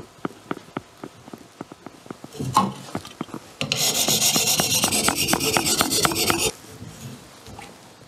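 Hand-held whetstone rubbed in rapid back-and-forth strokes against a steel sickle blade for about three seconds, a dense scraping grind, taking off the burr left on that side of the edge. It is preceded by a series of light ticks and a knock about two and a half seconds in.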